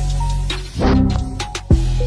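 Background music with a beat: deep bass notes that drop in pitch, sharp percussion hits and a short melody line.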